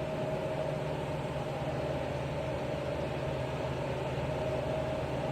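Heavy machinery running steadily: an even engine-like drone with a constant hum and a steady mid-pitched tone, unchanging throughout.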